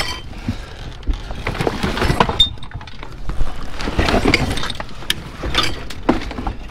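Salvaged junk being shifted and rummaged through in a pile: an irregular run of knocks and light clinks of hard objects, with rustling.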